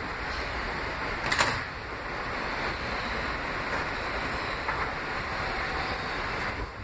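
Steady running noise inside a Kawasaki R160B subway car: wheels on rail and rumble as the train moves through the tunnel. A brief sharp hiss-like noise stands out about one and a half seconds in.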